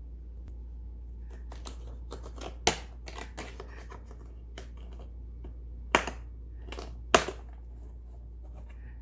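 Hard plastic clicks and snaps from a plastic drill-bit organiser case being turned and its clear lid unclipped and lifted open. Three sharp snaps stand out: one about a third of the way in and two close together past the middle, with softer handling clicks between.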